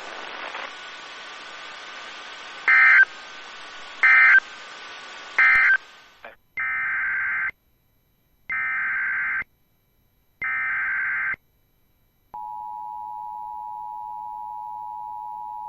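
Weather-radio hiss broken by three short digital data bursts, the SAME end-of-message code, then three one-second screeching SAME header data bursts about a second apart. From about twelve seconds in comes the steady two-tone EAS attention signal, the start of a new alert.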